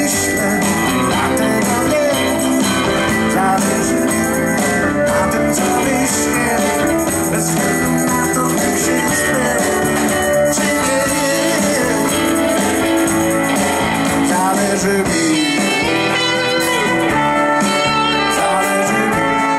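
Live band playing, with electric guitar, bass guitar, drum kit and keyboard.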